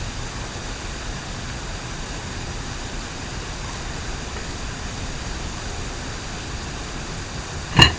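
A steady rushing background noise, with one sharp knock near the end.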